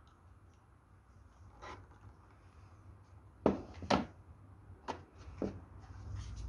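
A few light clicks and knocks of small plastic model parts being handled, the loudest pair about three and a half seconds in.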